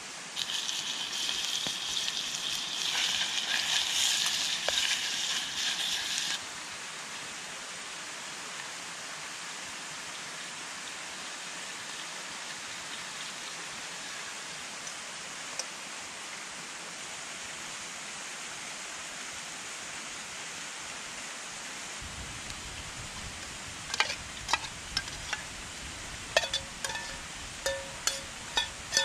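Steady rush of a mountain stream. For about the first six seconds there is a louder hissing sizzle from the campfire and the pot over it. Near the end come a run of sharp metallic clinks and knocks of camping pots, a few ringing briefly.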